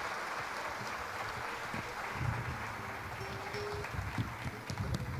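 Concert crowd applauding and cheering, a steady wash that thins toward the end, with low rumbles near the stage from about two seconds in.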